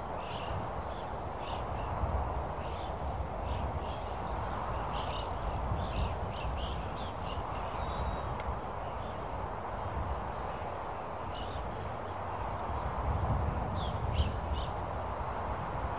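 Open-country ambience: steady wind noise with a shifting low rumble, and many short bird chirps scattered throughout.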